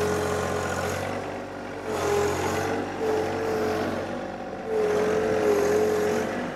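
Compact John Deere diesel tractor running under load as it backs up and strains against a buried brush pile held in its front loader, a whine rising and falling in several pulses. It is not getting enough traction to pull the pile loose.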